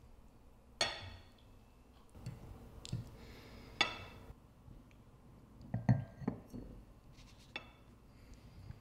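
Forks clinking against dinner plates while eating, about five scattered sharp clinks, a few of which ring briefly.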